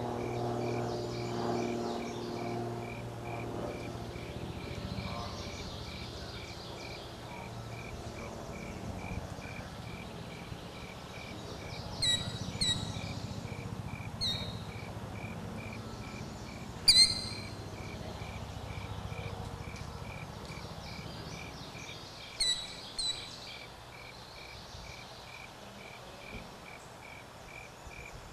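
A cricket chirps steadily, about two and a half chirps a second, while short, sharp bird calls cut in, in quick pairs about halfway through and again later, as the loudest sounds. Music fades out over the first few seconds.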